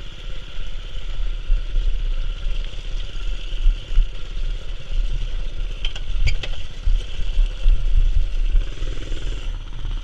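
Mini-bike's Predator 212 single-cylinder four-stroke engine running on a rough downhill trail, with a heavy, uneven low rumble and a couple of sharp knocks about six seconds in.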